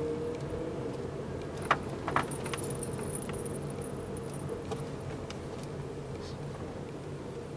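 Car engine running steadily at low speed, heard from inside the cabin. The keys hanging in the ignition jingle and click against the steering column, with two sharp clicks about two seconds in.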